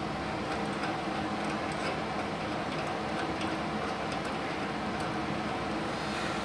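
Multipro MMAG 600 G-TY inverter welding machine switched on and idling, its cooling fan running steadily. A few light clicks sound over it, the sharpest about three and a half seconds in.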